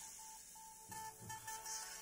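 Music played through a flyback-transformer plasma arc speaker, with the arc itself producing the sound. This is a quiet passage: a short high note repeats several times, with a few low notes about halfway through, over a steady hiss from the arc.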